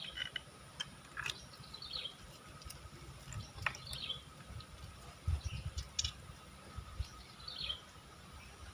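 Slime being handled: faint, scattered little clicks and squelchy squeaks, with a few soft low thumps.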